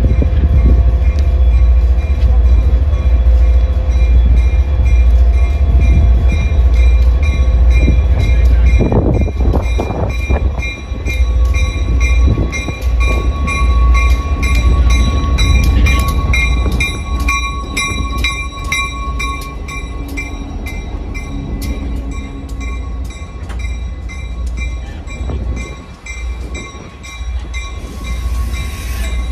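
Diesel-electric locomotive No. 2010 rolling slowly past at close range, hauling passenger coaches. Its engine makes a deep rumble, loudest for the first ten seconds or so while the locomotive goes by, then softer as the coaches follow. A bell rings in a steady rhythm over it.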